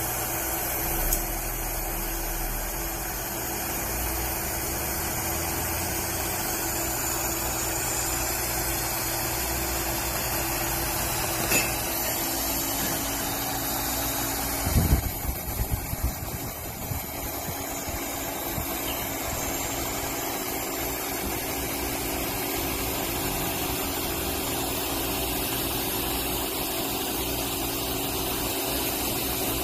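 Steady machine hum from an AXXAIR automatic orbital TIG welding system at work on a stainless sanitary tube, with single clicks near the start and just before halfway, and a cluster of sharp knocks and clatters about halfway through.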